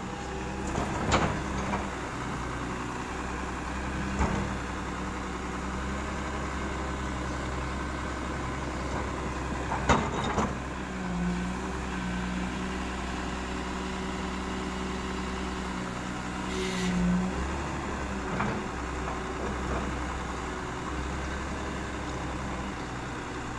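Volvo crawler excavator's diesel engine running steadily as the boom and bucket are worked, its note stronger for several seconds from about eleven seconds in. A few sharp knocks from the bucket and linkage, the loudest about ten seconds in.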